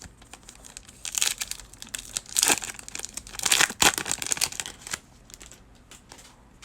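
A foil trading-card pack wrapper crinkling and rustling in a run of sharp bursts, from about a second in until about five seconds in.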